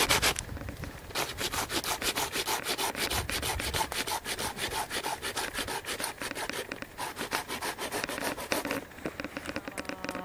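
A wooden stick being cut and shaped by hand for a frying-pan handle, rapid even rasping strokes on the wood. There is a short break about half a second in, and the strokes stop near the end.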